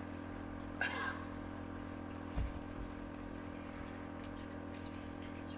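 Steady low hum, with a short rustle about a second in and a soft low thump about halfway through.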